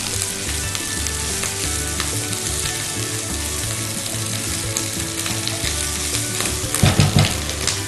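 Chopped onion and minced garlic sizzling in hot oil in a frying pan while being stirred with a spatula, as they sauté toward caramelizing.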